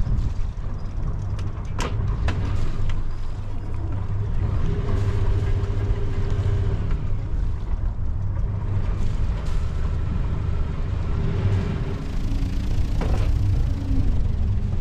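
A sailing yacht's engine runs steadily as the boat motors along, giving a continuous low rumble. Two brief knocks come through, one about two seconds in and one near the end.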